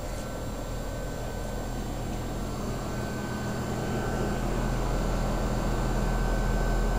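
American Standard heat pump's outdoor unit running in heating mode: a steady compressor hum under the rush of the condenser fan, growing gradually louder.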